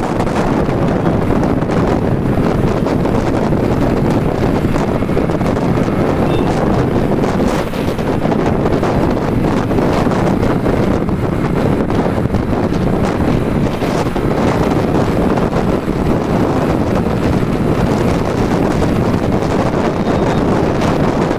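Steady, loud wind noise buffeting the microphone of a motorcycle moving at road speed.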